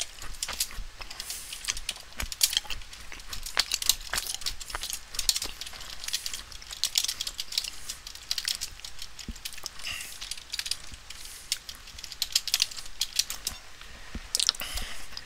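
Computer keyboard being typed on: an irregular run of quick, light key clicks, coming in short flurries.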